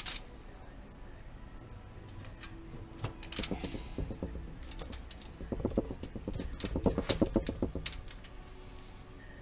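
Kitchen knife slicing a lemon against a plastic cutting board: a few scattered knocks, then a quick run of cuts and taps about two-thirds of the way in.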